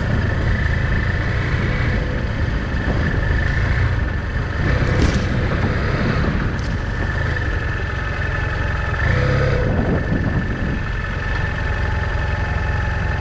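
BMW F800GS motorcycle's parallel-twin engine running steadily while the bike is ridden.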